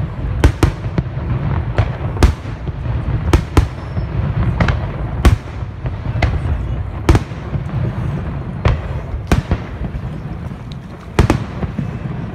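Fireworks display: about a dozen sharp bangs of firework shells bursting at irregular intervals, some in quick pairs, over a steady low rumble.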